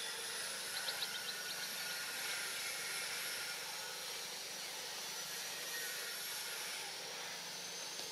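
Steady high-pitched insect chorus from the surrounding forest, a continuous hiss with a thin wavering whine over it. A quick run of faint clicks sounds about a second in.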